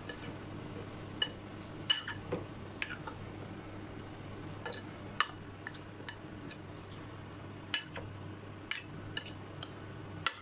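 Metal spoon clinking against a ceramic bowl while stirring marinated chicken wings: about a dozen sharp, irregular clinks over a low steady hum.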